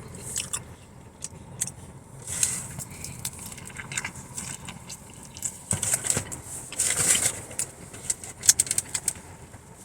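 Someone chewing a burger, with scattered clicks, crackles and crinkles from handling the food.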